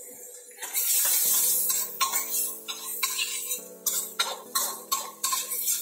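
Background music with sustained chords comes in about a second in. Under it a metal spatula scrapes and clinks in a steel wok where chopped garlic is frying in margarine.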